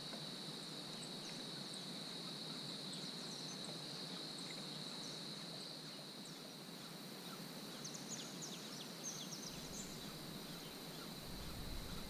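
Steady high-pitched drone of insects calling, with a few short high chirps about eight to nine seconds in.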